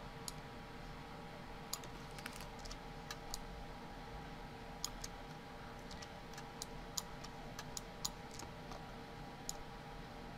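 Faint, irregular clicks of a computer mouse, about a dozen scattered sharp ticks, over a steady low hum.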